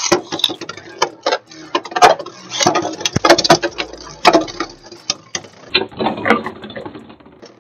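Two Beyblade Burst spinning tops launched into a plastic stadium, with a rapid, uneven run of sharp plastic clacks and rattles as they spin and collide with each other and the stadium walls.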